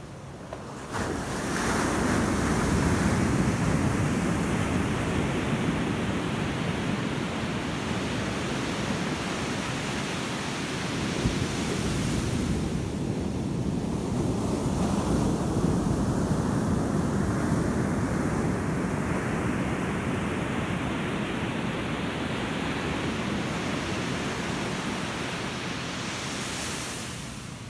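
Ocean surf: waves breaking and washing in as a long, steady rush. A fresh surge comes in about a second in and another builds around the middle.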